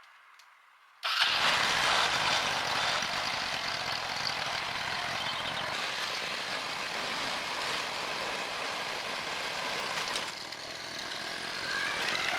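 The restored motor tricycle's engine running steadily, coming in suddenly about a second in.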